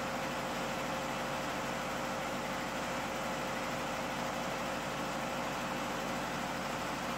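Steady drone of running machinery, an engine-like hum with a constant tone that does not change.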